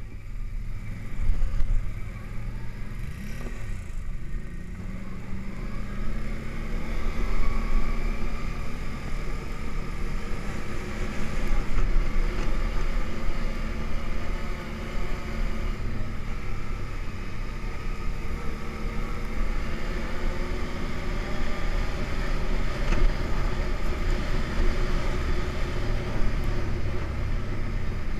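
An ATV engine heard from the rider's seat while riding a snowy trail. Its pitch climbs over the first several seconds as it picks up speed, then it runs fairly steadily over a constant low rumble.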